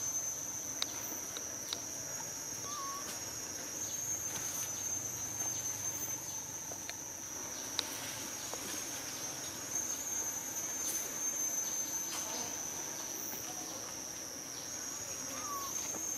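Continuous high-pitched insect drone holding one steady pitch, with a few faint clicks and a couple of brief small chirps.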